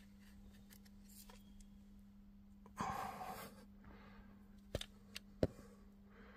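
Quiet room tone with a steady low hum, a short rustle about three seconds in, then a few sharp clicks.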